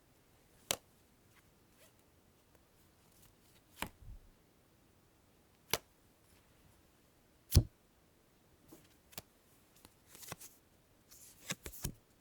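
Playing cards being drawn one at a time: single sharp snaps a couple of seconds apart, the loudest about seven and a half seconds in, then quicker rustling and sliding of cards near the end.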